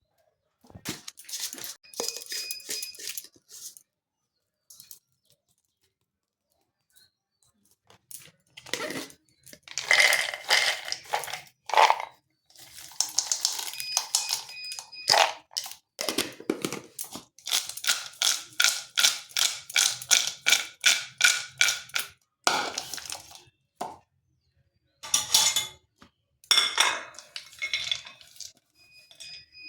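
A spoon knocking and scraping in a bowl as the chaat is mixed. It comes in runs of quick, rhythmic strokes with short silent pauses between them, and some strokes leave a faint ringing.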